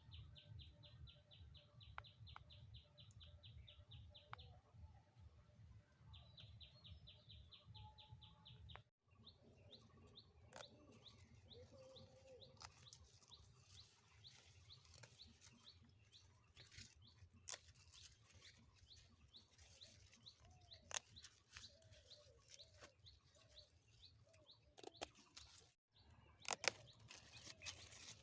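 Faint outdoor ambience with birds chirping. For about the first eight seconds a rapid, high, pulsing trill repeats over a low hum, with a short break in the middle. Later come scattered chirps and clicks, and the sound drops out abruptly twice.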